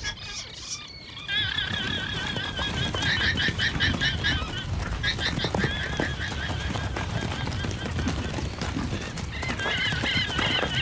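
Guanacos giving shrill, wavering, whinny-like alarm calls again and again from about a second in, over the rumble of hoofbeats as the herd runs. The calls warn the herd of a hunting puma.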